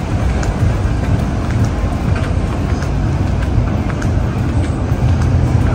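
Steady low outdoor rumble with a noisy hiss above it and faint light ticks scattered through.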